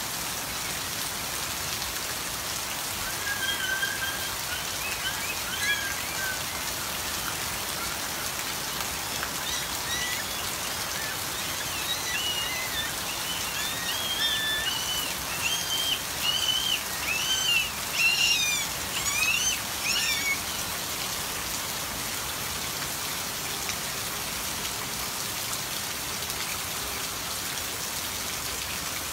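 Steady hiss of rain falling on the ground. Over it come short, high-pitched squeaky calls, scattered at first and then a busier run in the second quarter, stopping about two-thirds of the way through.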